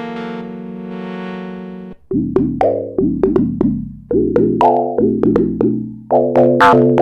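Arturia MicroFreak synthesizer playing a factory preset: a held tone with rich overtones that cuts off about two seconds in. A run of short, plucked notes follows at about three to four a second, growing louder near the end.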